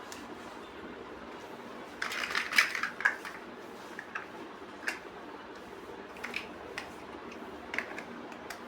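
Plastic building bricks being handled and pressed together: a short rattle of pieces about two seconds in, then single small clicks every second or so, over a steady low background hum.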